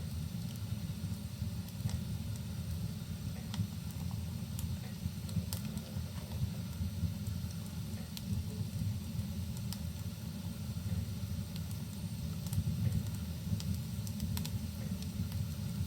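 Wood fire crackling in a fireplace, with scattered sharp pops over a steady low rumble and the hiss of rain.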